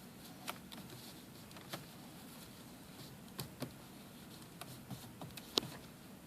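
Scattered light clicks and taps, about nine at uneven intervals, the sharpest near the end, as hands press and handle plastic dash trim pieces in a car interior.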